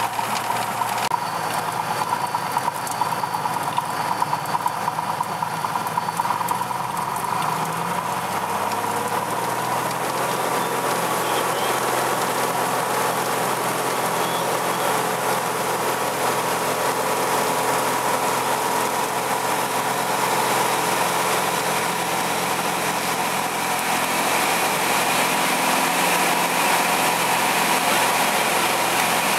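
Single-engine Piper's piston engine and propeller heard from inside the cockpit. The engine runs steadily, rises in pitch about seven to ten seconds in as power comes up, then holds at takeoff power as the aircraft rolls down the runway.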